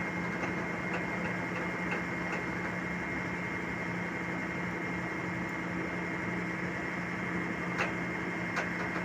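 Excavator diesel engine running at a steady idle, a constant hum. Two faint metallic clicks near the end.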